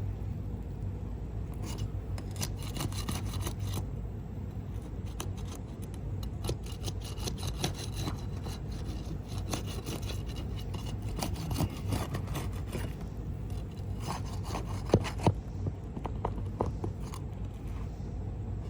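Scraping and rubbing on asphalt roof shingles in spells of rapid strokes, with a couple of sharp knocks about three-quarters through. A steady low hum runs underneath.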